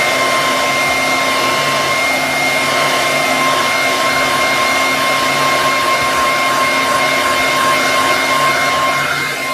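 Hand-held hair dryer running steadily, a loud rush of air with a high motor whine, blowing hot air onto the e-reader to soften the screen adhesive.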